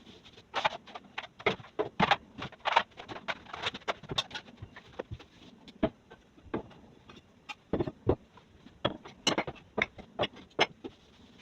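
Household items being handled and set down during kitchen cleaning: a string of irregular clicks, knocks and light clatter, a couple of dozen over the stretch.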